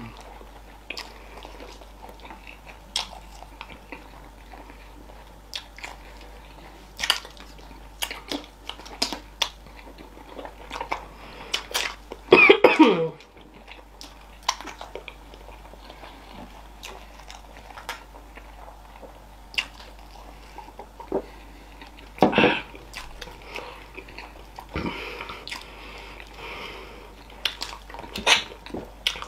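Close-up eating sounds of people chewing fufu with okra soup and fish by hand: wet chewing, lip smacks and sticky mouth clicks. A loud cough about twelve seconds in, and another short one a little past twenty-two seconds.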